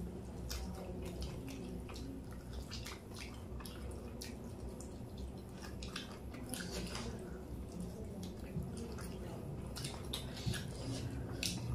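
Eating sounds of chicken lollipops being chewed and the meat sucked off the bone: irregular wet smacks and small clicks, over a low steady hum.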